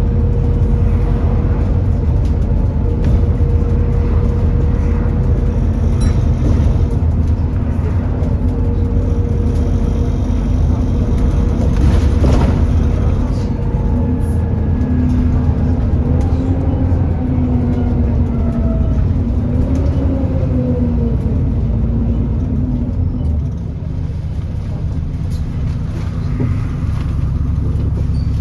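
Alexander Dennis Enviro400 E40D double-decker bus running, heard from on board: a steady engine rumble under a loud whine the uploader calls a "hoover". Midway the whines slide up and down in pitch as the bus changes speed, and the sound eases briefly near the end.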